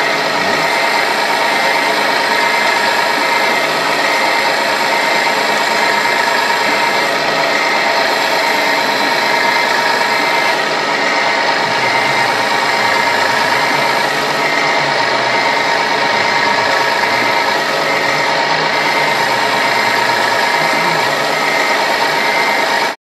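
Radio-controlled construction models running: a steady mechanical whine and rattle of small motors and gearing, holding a few fixed tones. It cuts off suddenly at the very end.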